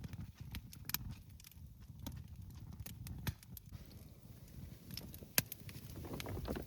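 Small wood campfire crackling, with irregular sharp pops and snaps of burning wood over a low, steady rumble.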